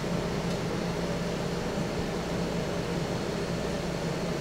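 Steady background room noise: a low hum under an even hiss, unchanging throughout.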